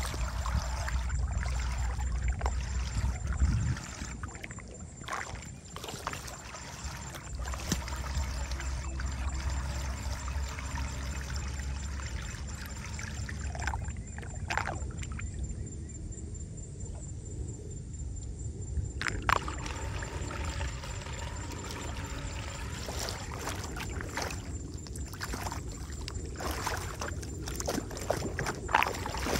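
Shallow floodwater swirling and draining down a street drain through a small whirlpool, with scattered splashes and sloshing as the water is stirred by hand and, near the end, by feet.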